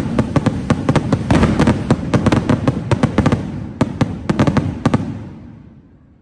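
Kwiton firework barrage cake firing a rapid volley of bangs, several a second, that stops about five seconds in and then dies away.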